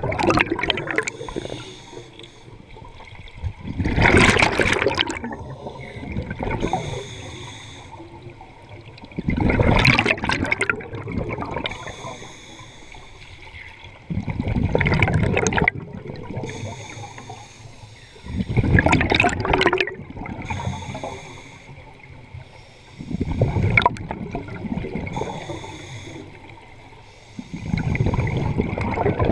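Scuba diver's regulator breathing heard underwater: a gush of exhaled bubbles about every five seconds, six times, with quieter stretches in between.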